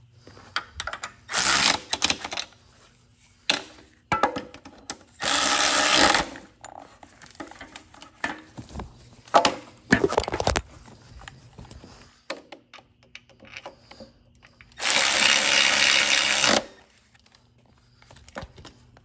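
A cordless drill-driver runs in several short bursts of one to two seconds, the longest near the end, driving in bolts as the pinion housing and clutch assembly go back onto a Graco airless paint sprayer. Knocks and clicks of metal parts being handled come in between.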